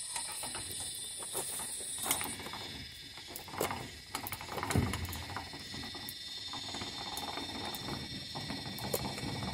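Faint clicks and a few creaks and knocks from the suspension and hydraulic jack as the jack under the lower control arm is let down, one creak about five seconds in sliding down in pitch. A steady high-pitched whine runs behind.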